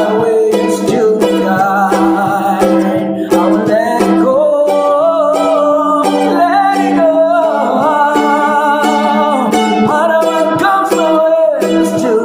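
Mandolin playing a melody over a held low note.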